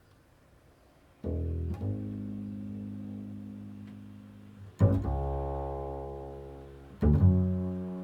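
Three low notes plucked on a string instrument, about a second, nearly five seconds and seven seconds in, each ringing on and slowly fading.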